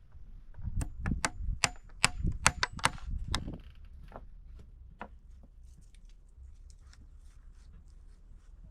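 A quick run of sharp knocks or taps, about a dozen in under three seconds, then fainter scattered ticks.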